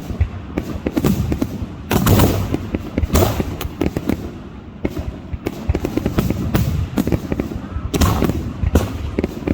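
Aerial fireworks shells bursting in quick succession: a dense barrage of booms and sharp cracks with crackling between them, heaviest about two seconds in and again near the end.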